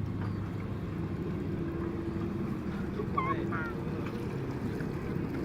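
Small amusement-ride boat running with a steady low hum. A few short, high chirping sounds come about three seconds in.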